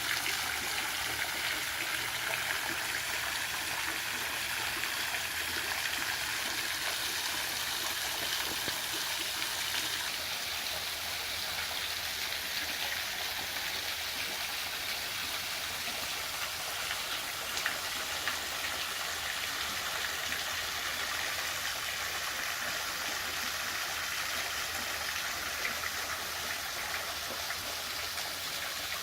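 Pool waterfall splashing steadily into the pool, an even rush of falling water.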